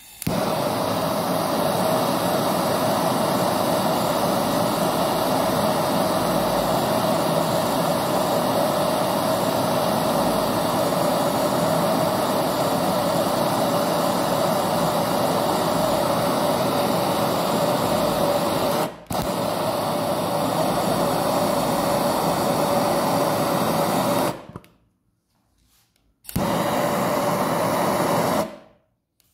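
Hotery HZ-8389 hand torch burning LPG from a gas bottle, its flame running with a steady hiss and a steady tone through it while it heats a copper tube for brazing aluminium into it. The flame noise breaks off for an instant about two-thirds of the way in, then stops for about two seconds near the end before starting again.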